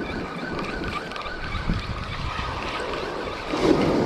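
Penn spinning reel being cranked steadily to reel in a hooked fish, its gears whirring. Surf and wind on the microphone sound behind it, and a louder rush of wind or wave comes near the end.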